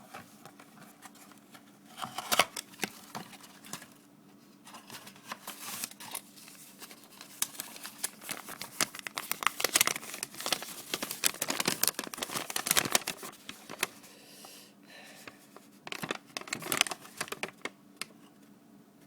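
Paper crinkling and rustling while being handled, in irregular bursts of crackles with short pauses between.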